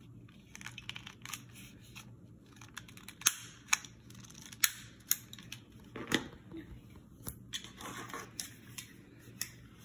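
Close handling noise from the recording phone: a scattered series of sharp clicks and light rustles, a few of them loud, over a faint low hum.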